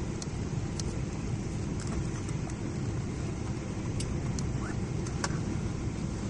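Steady cabin noise of a Boeing 777-300 airliner on approach: an even, low rumble of engines and airflow heard from inside the cabin, with a few faint ticks over it.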